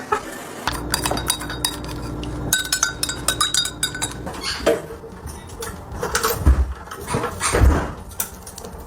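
Rapid light clinks and taps, like hard objects knocked together, with two louder dull thumps about six and a half and seven and a half seconds in.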